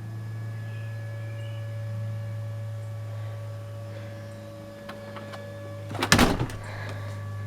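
A neighbour's vacuum cleaner heard from a distance as a steady low drone, with a slow swell and ebb in level, the sound mistaken for a tornado siren. A brief loud noise breaks in about six seconds in.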